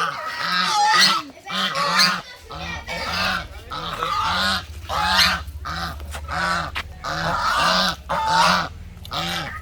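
Chinese goose honking in a rapid, steady series of loud calls, about two a second. A steady low hum joins in a couple of seconds in.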